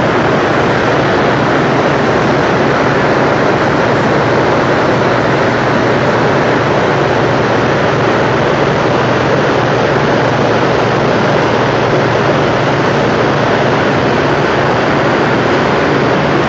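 Large hydroelectric generators in the Hoover Dam powerhouse running: a loud, steady roar with a low hum beneath it.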